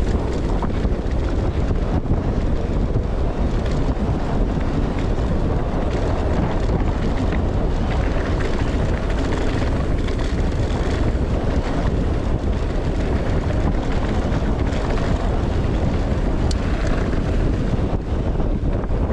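Steady, loud wind buffeting the microphone, a dense low rumble that holds without a break, as from riding into the airflow.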